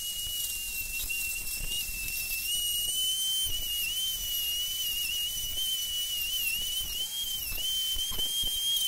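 Dremel rotary tool running at high speed, a steady high-pitched whine that wavers and dips briefly in pitch as its small grinding bit bears on steel, deburring the edge of a drilled hole in square steel tubing.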